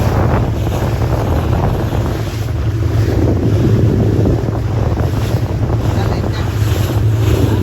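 Motorboat under way at speed: its engine runs with a steady low hum while wind buffets the microphone and water rushes past the hull.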